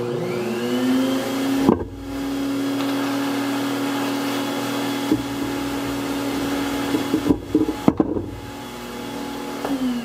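Shop vacuum switched on, its motor rising to speed, then running steadily as the hose cleans sanding dust off a trailer wheel, with a few sharp knocks of the nozzle against the rim. Near the end it is switched off and its pitch falls as the motor winds down.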